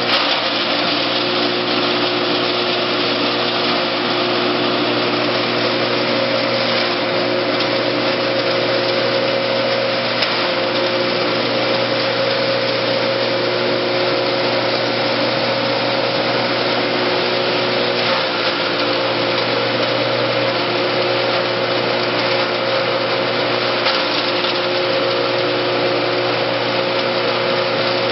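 MS-360 forage and grain chopper, its rotor of hammers and knives driven by a 3 kW single-phase electric motor, running steadily while green forage is fed in and shredded. A dense, even whir with a few steady tones under it, unbroken throughout.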